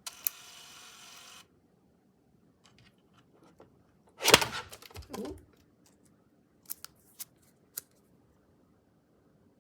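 Handling of small plastic items during an unboxing: a short hiss, scattered light clicks, a louder crackling rustle about four seconds in, then three sharp clicks.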